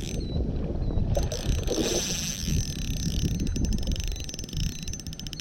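Low rumbling wind noise on the microphone with water sounds, and a rapid run of fine, even clicks from a spinning fishing reel for a second or two past the middle.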